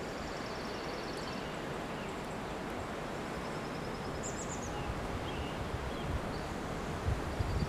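Steady rushing of wind through Monterey pine trees. A bird's high, rapid trill repeats three times over it, with a short chirp near the middle. Gusts buffet the microphone near the end.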